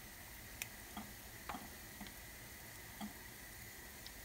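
Faint, short wet squelches and light taps, roughly one a second, from soft yeasted lokma batter being squeezed up through a hand and scooped off with a spoon.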